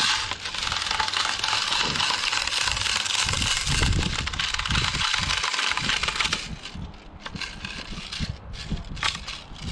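Airsoft BBs rattling as a magazine is loaded, a dense continuous rattle that stops about six and a half seconds in, followed by a few scattered clicks.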